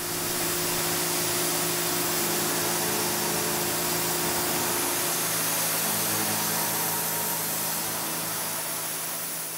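Tormach 770 CNC mill running a 3/16-inch ball end mill through a light knurling toolpath: a steady hum from the spindle under an even, loud hiss from the air-blast coolant nozzle, easing off slightly near the end.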